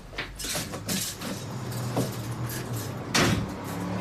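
A motor vehicle's engine running with a steady low hum, over a series of knocks and clatters like doors, with a loud bang about three seconds in.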